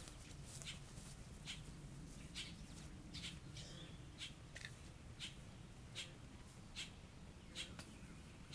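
Faint bird chirping outdoors: a short, high chirp repeated roughly once a second over a low background hum.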